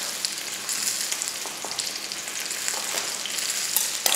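Chicken sizzling and crackling as it sears in hot rapeseed oil in a frying pan, with a sharp click near the end.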